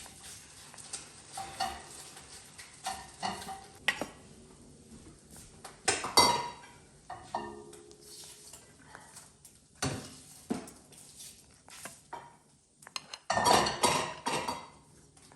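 Dishes and utensils clinking and clattering as they are handled, in irregular knocks, with a louder clatter about six seconds in and a longer burst of clattering near the end.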